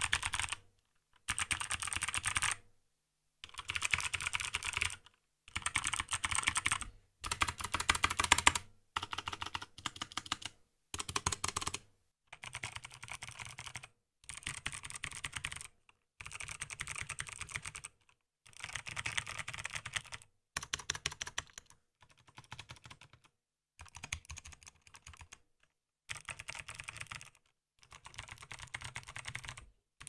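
Fast typing on mechanical keyboards with stock Kailh Sherbet switches and PBT DSA keycaps, in short bursts of dense key clacks with dead silence cut in between by a noise gate. About twelve seconds in the clacking becomes quieter as the frosted-plastic Rama Works Kara takes over from the GMMK; the Kara's sound is more muted, with far less reverberation.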